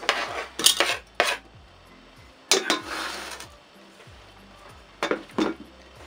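A plastic cutting board and a knife clattering and scraping against an enamel pot as potato scraps are pushed off the board into it. There are several short bursts: a run of knocks in the first second or so, a longer scrape near the middle, and two more knocks near the end.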